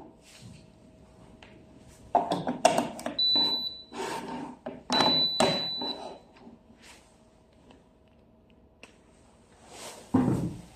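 Plastic clicks and clatter as a plug is pushed into a power strip, then two short high electronic beeps from an electric kettle's control base. Near the end a dull thud as the kettle is set down on its base.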